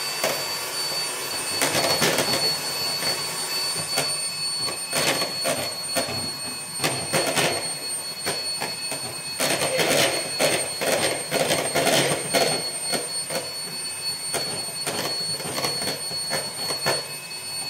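Electric hand mixer running steadily, its beaters whipping egg whites while sugar is added a little at a time. A constant high motor whine with irregular rattling from the beaters in the bowl.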